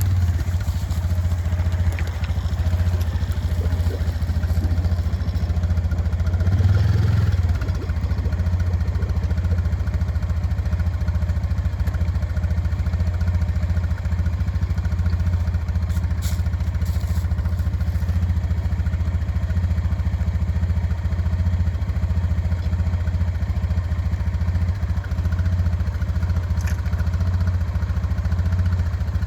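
A motor running steadily with a low, even hum, swelling slightly about seven seconds in.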